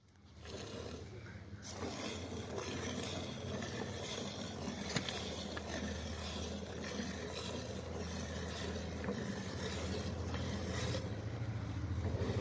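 Hand-milking a buffalo: streams of milk squirting from the teats into a steel bucket of frothy milk, a steady hissing and splashing.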